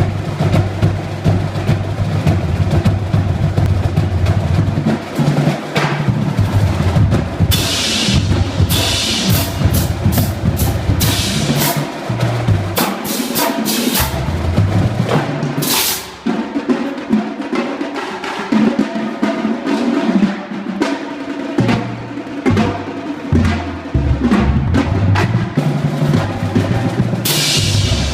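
Marching drum line playing: snare drums with rolls over low bass drums sounding notes at different pitches, with a few bright crashes.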